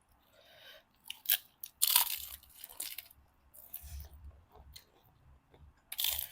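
Crunchy food being bitten and chewed, a few irregular crackling crunches.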